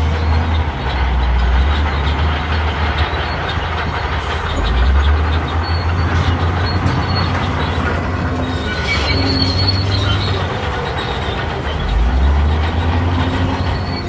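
Crawler bulldozer working: its diesel engine runs low and heavy, swelling under load a few times, while the steel tracks clank and squeal.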